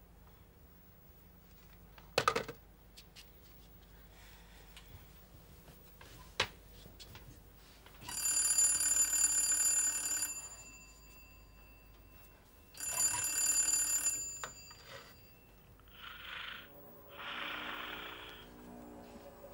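A sharp knock, then a telephone's bell rings twice, each ring lasting about two seconds.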